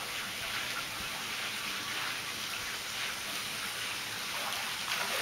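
Steady splash and patter of water in a swimming pool, like rain falling on water, from water spilling over the lip of a raised spa into the pool.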